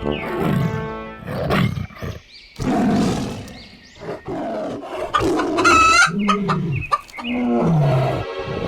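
Chickens squawking and clucking in alarm, with a rooster crowing, mixed with the low falling growls of a big cat, a tiger, about six and seven and a half seconds in.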